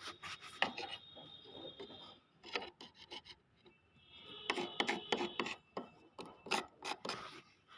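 Hand tool rasping and scraping on old wood in quick back-and-forth strokes: a run of strokes, a pause of about two seconds, then another run.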